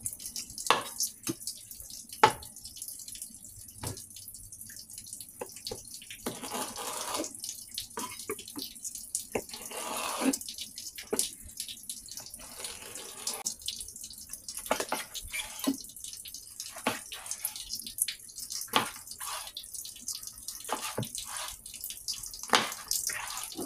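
Kitchen knife slicing an eggplant on a wooden cutting board: irregular sharp knocks of the blade hitting the board, with a few stretches of soft hiss between them.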